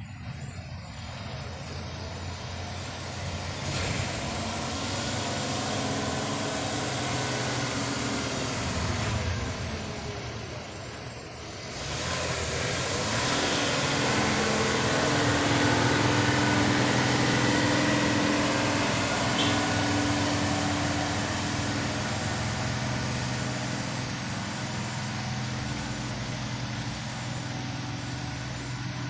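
Road traffic passing with steady tyre noise. About twelve seconds in, a heavy truck's diesel engine grows louder and then runs steadily.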